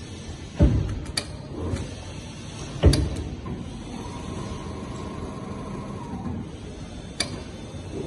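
Industrial automatic sewing machine running as it stitches through padded fabric: steady mechanical noise with two heavy thumps, about half a second and three seconds in, sharp clicks, and a faint steady tone for about two seconds midway.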